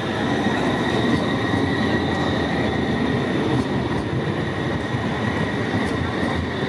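CAF Urbos 3 low-floor tram running past close by on street track: a continuous rumble of steel wheels on the rails, with a steady high-pitched whine over it.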